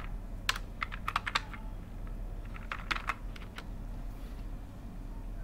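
Keystrokes on a computer keyboard typing a search query: quick runs of clicks about half a second in and again around three seconds in, then the typing stops. A low steady hum runs underneath.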